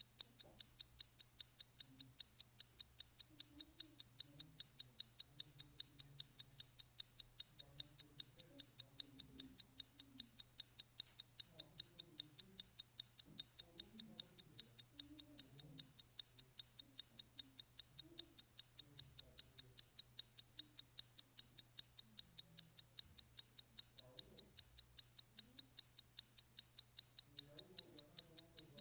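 Even, rapid clock-like ticking, about three sharp ticks a second, starting and stopping abruptly, as from a ticking timer counting down thinking time. A steady low hum runs underneath.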